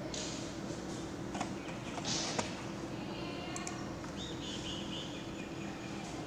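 Quiet classroom room tone: a steady low hum with a few faint clicks and knocks, and a short run of high chirps about two-thirds of the way in.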